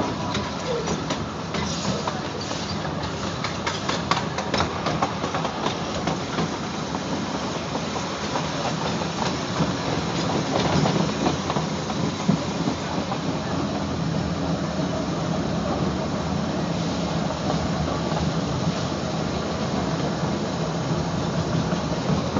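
A small 4-4-0 steam park train's open passenger cars rolling along the track: steady rumble and rattle of wheels on rails, with a run of sharp clicks in the first few seconds.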